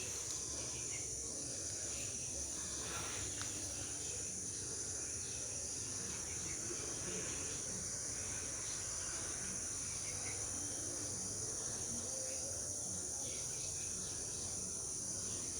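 Steady chorus of insects, a continuous high-pitched shrill that does not break or change.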